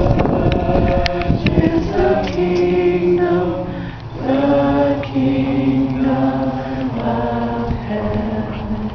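A group of mourners singing together unaccompanied in slow, held notes, with a short break about four seconds in.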